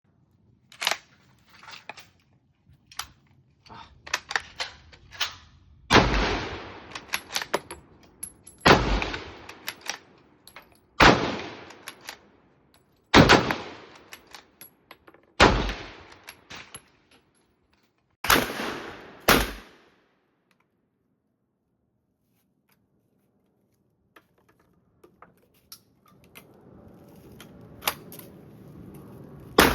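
Gunshots from a firearm, fired one at a time: fainter shots and clicks at first, then seven loud shots about every two to three seconds, each with a short ringing tail. After a pause there is a steady rushing noise and one more loud shot near the end.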